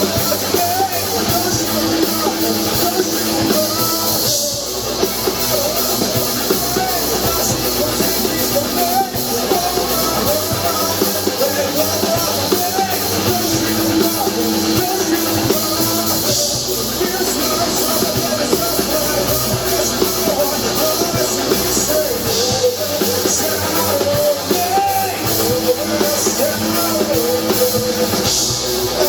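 Rock band playing live, with a drum kit and guitar and a voice singing over them.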